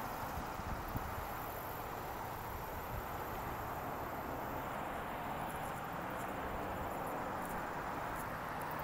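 Steady outdoor background noise with no distinct event, and a few faint high-pitched chirps or ticks near the end.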